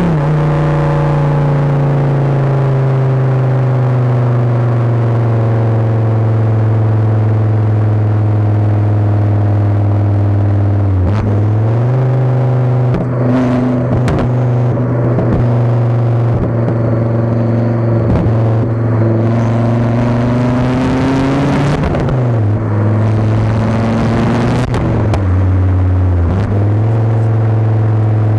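Volvo S60R's turbocharged five-cylinder engine through a 3-inch straight-pipe exhaust, heard right at the tailpipe while driving. It gives a steady deep drone that sinks slowly in pitch, then steps up about halfway through, dips and rises again near the end.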